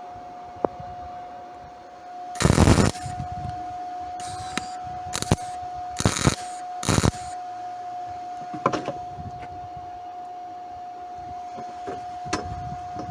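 MIG welder making a series of short crackling arc bursts as tack welds are laid on aluminum, run with its usual wire and shielding gas rather than argon. The first burst, about two and a half seconds in, is the longest and loudest, and a steady tone runs underneath.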